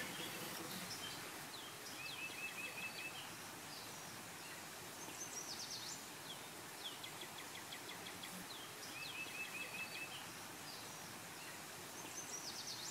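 Birds singing in short trills of quick, high chirps, repeated several times over a steady background hiss.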